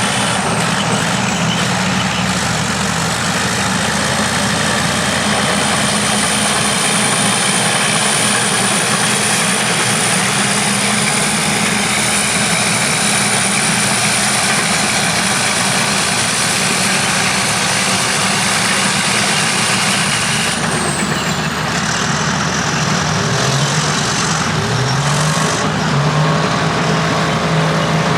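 Vintage crawler bulldozers and scrapers working, their heavy engines running steadily, with a thin high whine above the engine note. Near the end an engine speeds up, its pitch rising.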